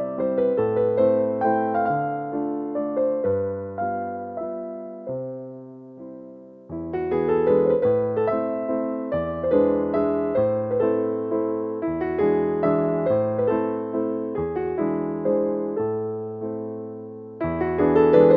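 Background music: a soft, slow electric piano melody with chords, fading to a lull about six seconds in before fuller playing resumes.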